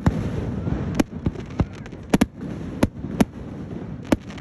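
Fireworks display: aerial shells bursting in a string of sharp bangs, roughly eight in four seconds, two of them almost together near the middle, over a steady low rumble.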